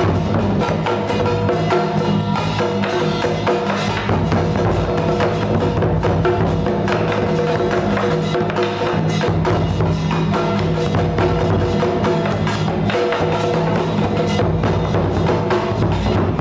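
Music of rapid wood block and drum strikes over sustained pitched tones, steady and unbroken.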